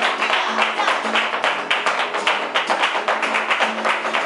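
Live flamenco: a fast, even rhythm of sharp strikes from palmas (hand clapping) and the dancer's heel-and-toe footwork, over flamenco guitar.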